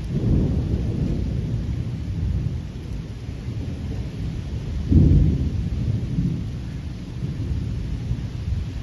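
Thunder rumbling low and long, swelling at the start and most loudly about five seconds in.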